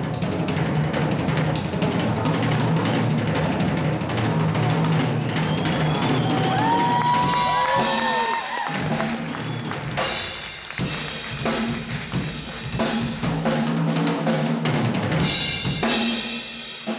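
Acoustic drum kit played solo: dense, rapid rolls around the toms and bass drum, thinning about eight seconds in to sparser hits with bright cymbal crashes.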